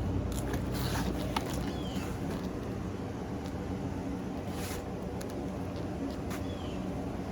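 Scattered light knocks and rustles of fireworks packaging being handled over a steady low rumble, with a few faint, short high chirps.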